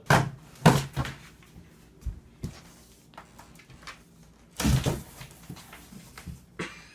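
A series of knocks and bangs: two loud ones in the first second, lighter knocks about two seconds in, and another loud bang about four and a half seconds in.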